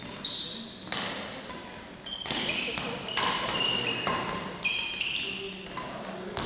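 Badminton rally in a sports hall: rackets smack the shuttlecock about once a second, five or six sharp hits with a short echo after each. Shoes squeak on the hall floor between shots.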